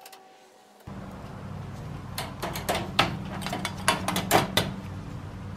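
Metal clicks and rattles from handling the wire-mesh cage trap and its parts, irregular and quick, over a steady low hum that starts abruptly about a second in.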